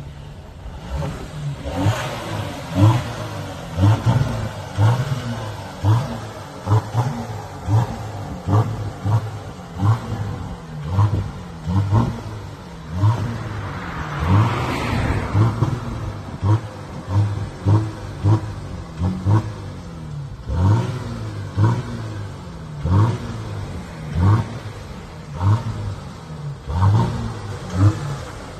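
VW Amarok's 3.0-litre V6 TDI diesel, with a downpipe and muffler-delete exhaust, revved in short, sharp blips about once a second. There is a longer rush of noise about halfway.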